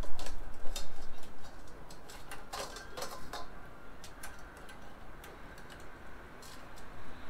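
Light metallic clicks and taps of a steel S-hook being fitted onto the loops of a wire beer-can chicken holder, densest in the first few seconds with a few more near the end.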